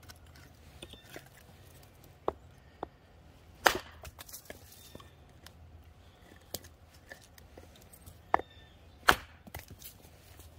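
Gränsfors Bruk Wildlife Hatchet splitting small pieces of wood on a stump chopping block: several sharp, separate chops, with lighter knocks of split wood being handled between them.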